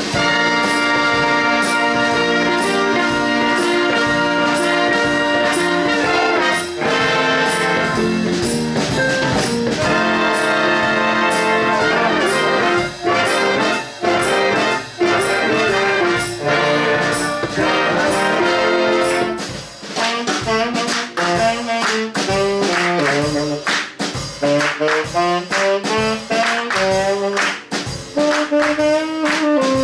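A big band playing: the brass section holds loud sustained chords with sharp accents. From about twenty seconds in, it breaks into a quicker line of short notes that move up and down in pitch.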